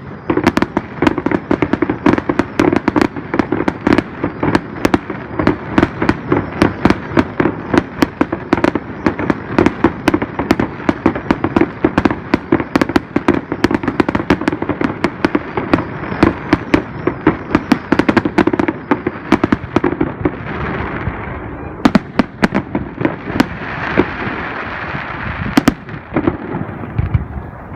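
Fireworks display: a dense, rapid barrage of bangs, several a second, for about twenty seconds, then thinning to a few scattered bangs over a hissing, crackling wash near the end.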